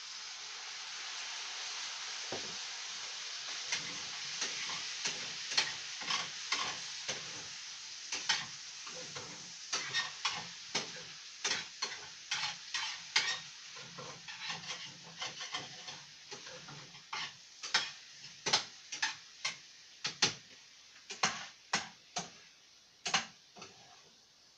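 Ground pork, beans and potatoes sizzling in a frying pan on a gas stove while a spatula stirs them, scraping and clacking against the pan many times at an irregular pace. The sizzle swells in the first couple of seconds and then slowly dies down.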